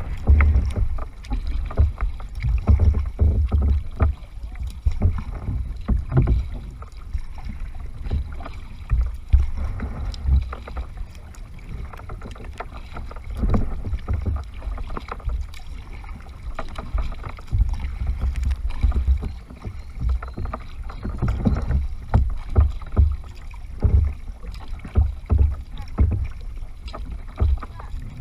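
Kayak paddle strokes and water splashing against the hull, with irregular knocks and a gusting low rumble of wind on the microphone.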